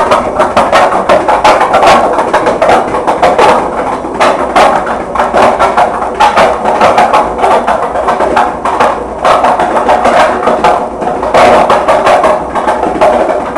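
Washing machine clattering loudly with rapid, irregular knocks.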